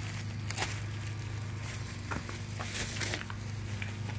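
Plastic masking sheet and painter's tape being handled and pulled away, giving scattered light crinkles and crackles over a steady low hum.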